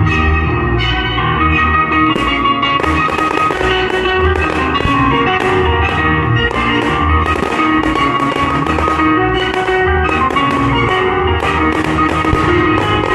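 Instrumental music with sustained pitched notes over a steady low beat.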